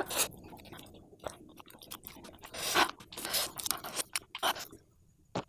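A person chewing a mouthful of instant noodles, with irregular short wet noises that die away near the end.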